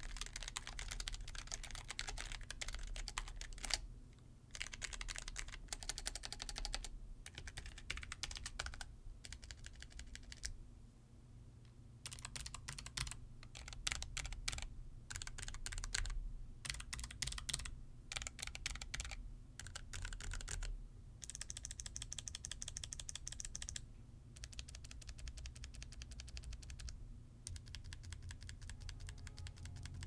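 Typing on Logitech G915 low-profile mechanical keyboards with GL key switches, as a switch sound test. The key clicks come in runs of a few seconds, broken by short pauses.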